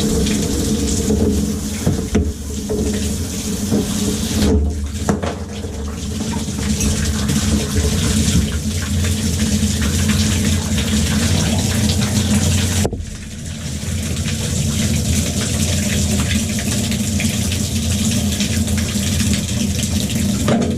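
Water spraying hard out of an opened Moen tub and shower valve under full line pressure, a steady loud rush that dips briefly about thirteen seconds in. The water has not yet been shut off.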